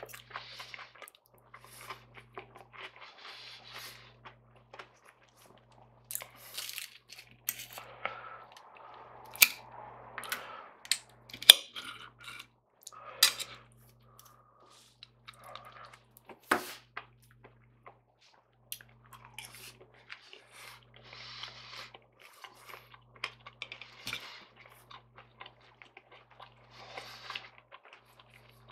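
Close-up chewing and crunching of fried breakfast food, broken by sharp clinks and scrapes of a knife and fork on a plate. The clinks are the loudest sounds, the sharpest about a third and about halfway through.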